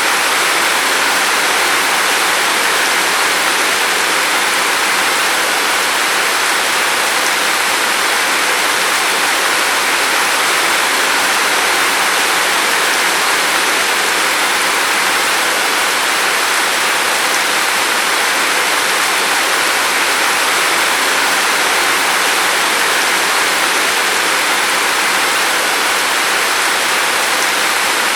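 Steady, even rain falling, a continuous hiss with no single drops or changes standing out.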